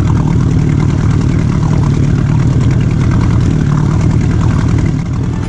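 Yamaha 25 hp two-stroke outboard motor running steadily at trolling speed, pushing an inflatable boat.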